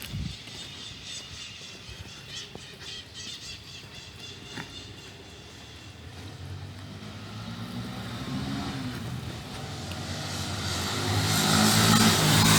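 A motor vehicle approaching along the street, its engine growing steadily louder from about halfway in and passing close by with a rush of tyre and engine noise at the end.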